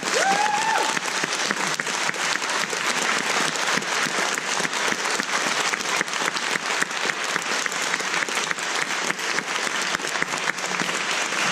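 Audience applauding, a dense patter of many hands clapping. Just after it begins, one voice gives a short rising whoop.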